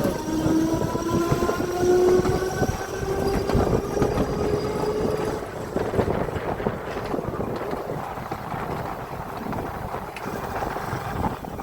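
Electric tram running on its track: the motor whine rises in pitch for the first five seconds or so as it picks up speed, then fades under the steady rumble and clatter of the wheels on the rails.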